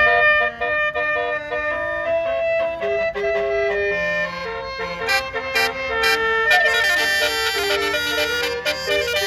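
Basuri telolet air horn on a bus playing a fast melody of reedy, stepped notes. About six and a half seconds in, a falling note leads into a fuller, brighter run of notes.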